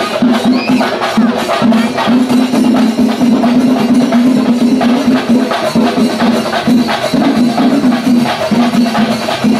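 Kummattikali procession music: percussion keeping a fast beat under a loud, repeating low melodic tone.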